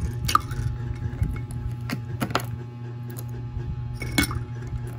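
Ice cubes dropped one by one into a glass of coffee, clinking against the glass: about four sharp clinks spread over a few seconds.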